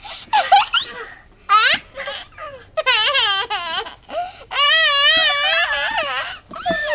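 Young boys' high voices: short shrieks and laughs, then, from about halfway, a long wavering wail of pretend crying.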